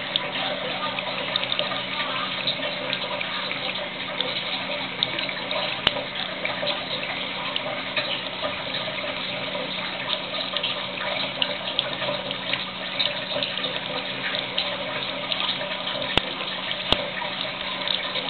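Thin stream of water running from a kitchen tap and splashing into the sink, steady throughout, with a few brief sharp clicks.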